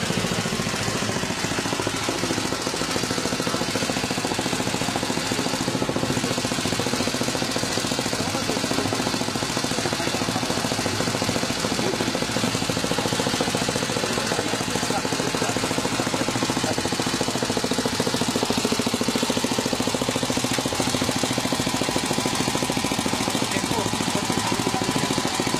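Honda CBX air-cooled inline-six motorcycle engine idling steadily, a fast, even stream of firing pulses.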